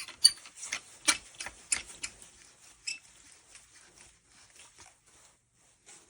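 Small metal parts of an aluminum hiking staff and its tool inserts clicking and tapping together as they are handled. The clicks come quickly for about two seconds, then grow sparse and quieter.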